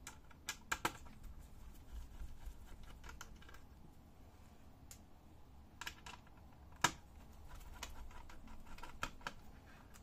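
Small screwdriver clicking and tapping on the screws of a laptop's metal hard-drive bracket as they are undone: light, irregular clicks, with one sharper click about seven seconds in.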